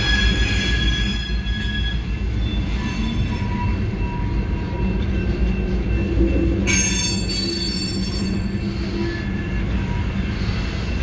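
Freight cars rolling past over the crossing: a continuous low rumble with steady high-pitched wheel squeal, strongest at the start and again about seven seconds in, heard from inside a car.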